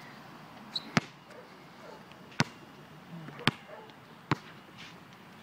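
Basketball bouncing on a concrete outdoor court: four sharp bounces, each coming a little sooner and a little softer than the one before.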